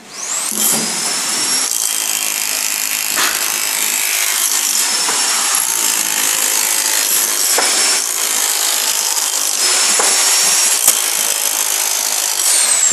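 An electric power tool spins up with a rising whine and runs steadily for about twelve seconds with a harsh, high rasp and a few knocks. Near the end it winds down with a falling whine.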